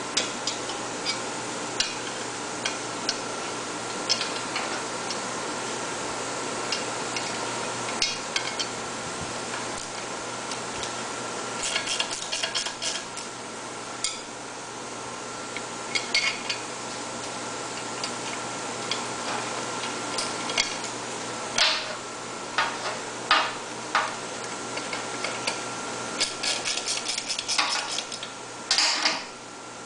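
Scattered light metallic clicks and clinks from hand work on a generator engine's end housing and its bolts, with bunches of quick clicks about halfway through and again near the end, over a steady hum.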